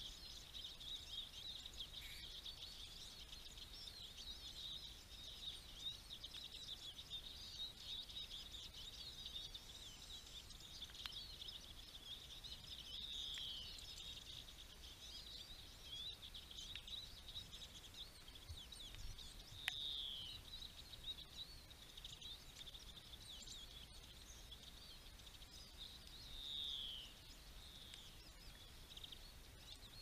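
A flock of small songbirds feeding at a seed feeder, mainly Eurasian siskins and greenfinches with tits, twittering and chirping continuously. Several clear, short falling calls stand out over the chatter.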